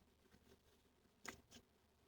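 Near silence: room tone, with one faint click a little over a second in.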